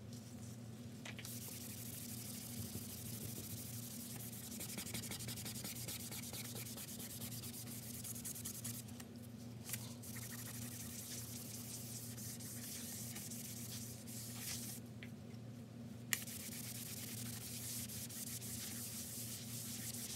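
A Chalk Couture eraser scrubbed hard back and forth across a painted chalkboard sign, working at ghosting left by a high-pigment design. The scratchy rubbing comes in three long spells with short pauses between, and there is a single click about 16 seconds in, over a steady low hum.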